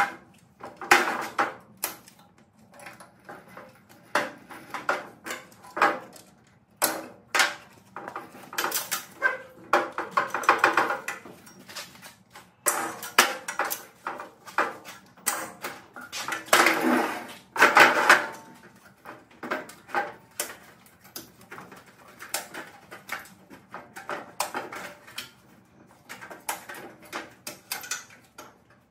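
An aluminum lawn chair being taken apart by hand for scrap: the light hollow frame and its plastic straps rattle, clink and knock against a metal cart in irregular bursts. The busiest, loudest rattling comes a little past the middle.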